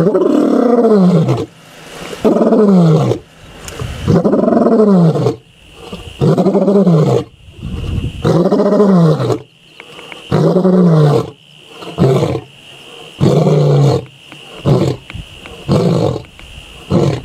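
Male lion roaring: a bout of about ten calls, each rising then falling in pitch, a second or two apart. The later calls are shorter and more grunt-like.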